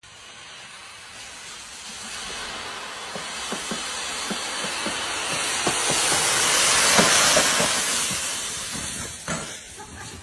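Mountain bike ploughing downhill through deep dry leaves: a rushing hiss of churned leaves with small crackles. It builds as the rider comes near, is loudest about seven seconds in, then fades.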